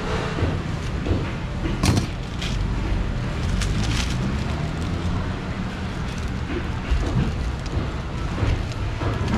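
A kitchen knife paring the skin off a pineapple, with a few sharp clicks and knocks, the loudest about two seconds in, over a steady low rumble.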